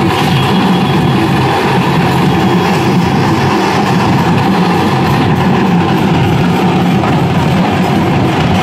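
Loud, steady din of a large crowd in a street procession, dense and unbroken with no clear voices standing out.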